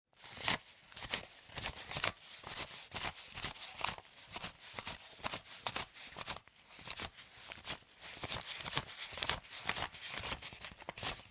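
Paper banknotes being counted by hand: a run of crisp flicks and snaps over a papery rustle, two or three a second at an uneven pace.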